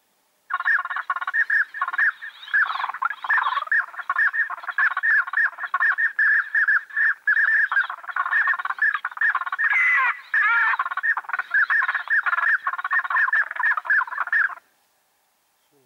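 Ducks calling: a rapid, continuous run of short chattering notes that starts about half a second in and cuts off suddenly near the end.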